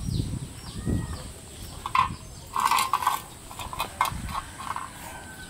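Puppies eating from a metal bowl on concrete: irregular chewing and knocks and clatters of the bowl, loudest about two seconds in and again around three seconds.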